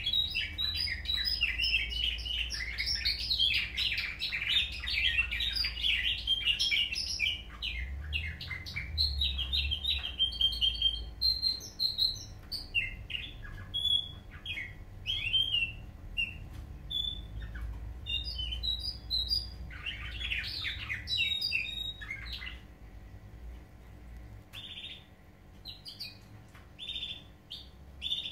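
Caged canaries singing nightingale-style (bülbül ötümlü) song: fast chirps and rolling trills, dense for the first dozen seconds, then sparser separate notes and short bursts with another busy run around two-thirds of the way in. A steady low hum runs underneath.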